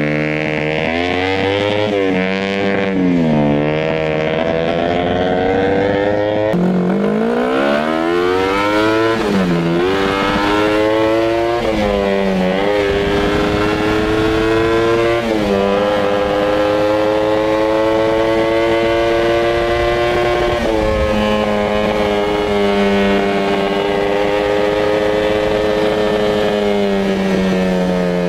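Kawasaki Ninja 250 parallel-twin motorcycle engine in an offroad buggy under way, its pitch climbing and then dropping back several times as it revs up and eases off. It settles into a fairly steady high-speed run in the second half.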